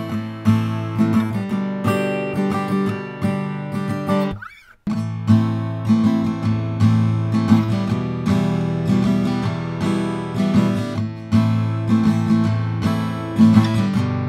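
Acoustic guitar strummed in steady chords, with a brief gap about five seconds in before the strumming resumes.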